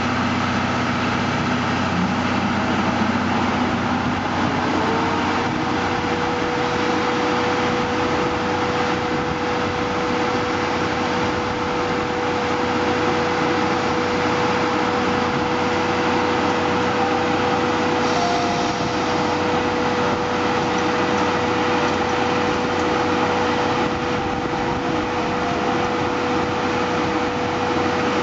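JNR Class C57 steam locomotive No. 180 moving slowly and drawing up, with a steady hiss of steam and machinery noise. A steady hum comes in about five seconds in and holds.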